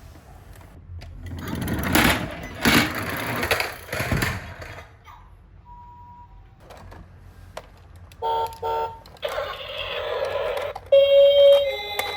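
Plastic toy ambulance minicars clattering and rolling for a few seconds. Later come two short electronic beeps and a burst of hiss. Near the end a toy's electronic ambulance siren starts sounding loudly.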